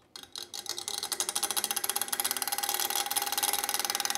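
3D-printed contra-rotating PC fan spinning up at full speed. Its small plastic gear train, which drives the second fan against the first, clatters rapidly under a steady whine, and the noise builds over the first couple of seconds before holding steady.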